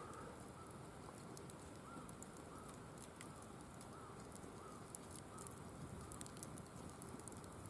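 Firewood crackling in a wire-mesh fire pit: faint, scattered pops and ticks. A series of short, faint high notes comes about once every half second through the middle.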